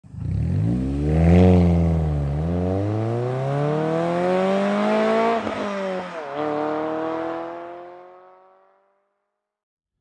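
Car engine accelerating through the gears: the pitch climbs, drops back sharply at each upshift (two quick shifts a little after halfway), then climbs on and fades away into silence.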